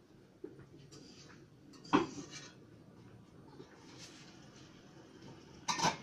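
Dishes clattering off-screen: two sharp clinks about four seconds apart, the first the louder, over faint room noise.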